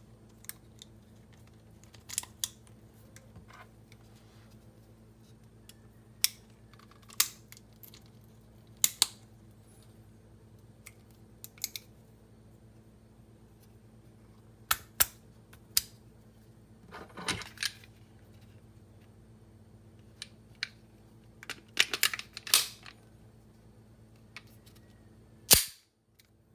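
Parts of a field-stripped Taurus G2C 9mm pistol being handled: magazine, slide, frame and cartridges, giving scattered sharp metal-and-polymer clicks and clacks. There is a short rattle about two-thirds of the way through, a quick cluster of clicks after it, and the loudest click near the end.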